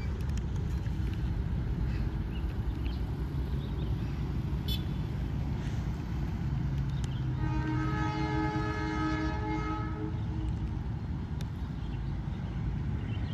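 Indonesian diesel locomotive's horn sounding one long blast of about three seconds, several tones at once, about halfway through, over a steady low rumble.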